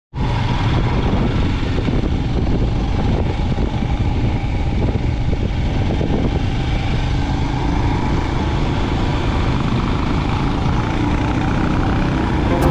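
A motorcycle being ridden along, its engine mixed with a steady rush of road and wind noise.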